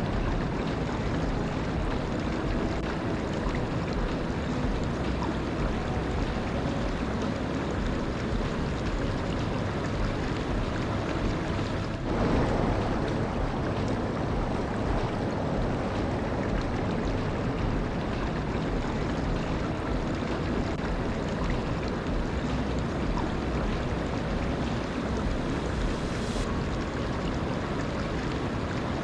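Waterfall: a steady, even rush of falling water, briefly a little louder about twelve seconds in.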